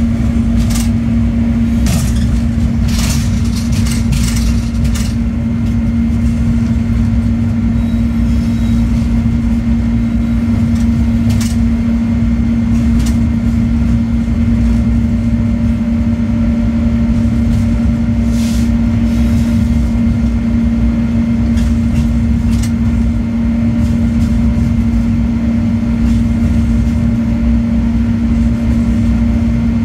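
Diesel-electric locomotive heard from inside its cab while rolling slowly: a loud, steady engine hum over a low rumble, with scattered sharp clacks, several in the first few seconds and a few more later.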